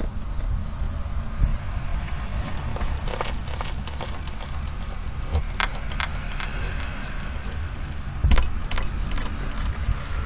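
A bunch of keys jangling and clinking at a front door, a quick run of small metallic clicks over a steady low rumble, with one louder thud about eight seconds in.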